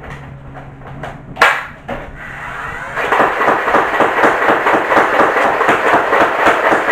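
Nerf Elite 2.0 Turbine CS-18 motorized blaster: one sharp clack about a second and a half in as the magazine snaps into place, then from about three seconds in the flywheel motor whirs and the pusher fires foam waffle-head darts in fully automatic fire, a fast, even rattle of shots.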